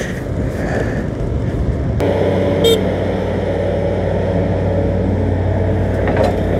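A scooter riding over a rough gravel road with wind and road rumble. About two seconds in, this gives way suddenly to the steady drone of excavators' diesel engines working close by. Shortly after, there is a brief high-pitched tone.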